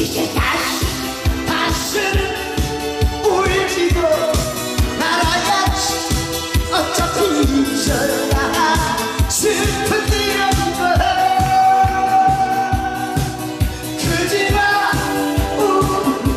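A singer performing over amplified backing music with a fast, steady beat.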